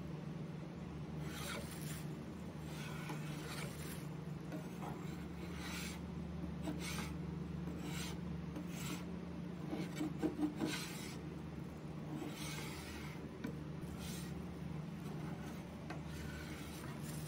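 Metal putty knife scraping stripper-softened paint off a wooden tabletop, in repeated strokes about one a second, with a few sharper clicks about ten seconds in. A steady low hum runs underneath.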